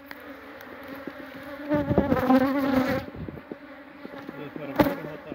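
Honeybees from an opened, disturbed hive buzzing in a steady hum. The buzz swells louder and wavers in pitch for about a second around two seconds in. A single sharp knock sounds near the end.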